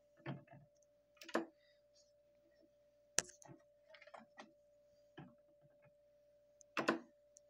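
Faint clicks and taps of a 45 rpm vinyl single being handled on a turntable platter, with one sharp click about three seconds in and a louder cluster near the end, over a steady faint hum.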